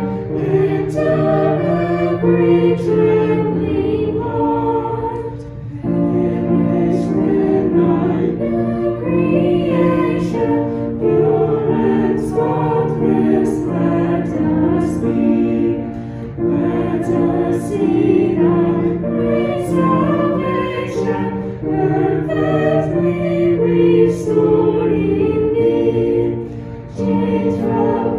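Choir singing a hymn, in phrases with short breaks between them.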